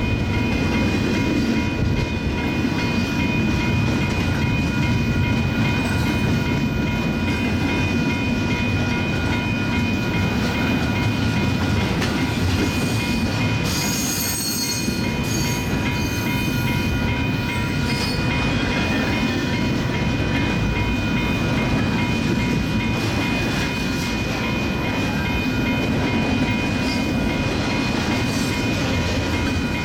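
Double-stack freight train rolling steadily past: continuous rumble and clatter of wheels on rail, with a faint steady metallic whine and a brief high screech about halfway through.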